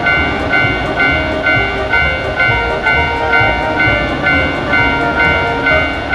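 Japanese railroad crossing warning bell ringing its "kan-kan" alarm steadily, about two strokes a second, over music and a low train-like rumble.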